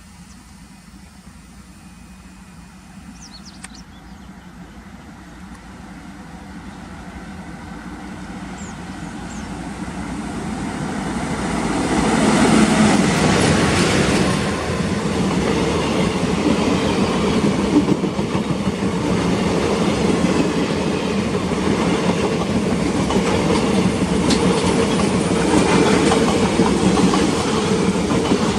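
Alco diesel locomotive hauling a passenger train, approaching and passing. The engine rumble swells steadily for about twelve seconds, then stays loud as the train runs by, with the wheels clattering over the rail joints.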